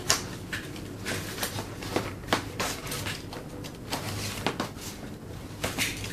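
A utility knife slicing the tape on a cardboard box, with scrapes, rustles and light taps of the cardboard being handled. It comes as a string of short, sharp clicks spread through the whole stretch.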